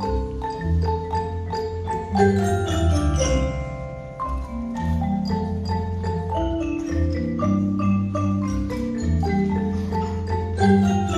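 A student mallet percussion ensemble of xylophones and glockenspiels playing a tune: a steady run of struck, ringing notes over sustained low bass notes.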